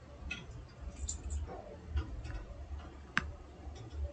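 Computer mouse clicking: a few faint ticks and one sharper click about three seconds in, over a steady low hum.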